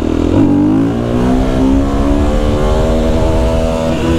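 Husqvarna FE 350's single-cylinder four-stroke engine revving hard in second gear as the clutch is dumped for a wheelie. The pitch climbs quickly over the first two seconds, then holds high and creeps up before dropping at the very end.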